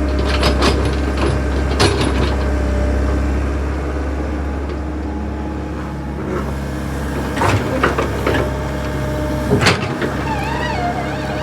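Backhoe's diesel engine running steadily, with several sharp knocks from the machine as it works: one near the start, one about two seconds in, and a cluster near the end.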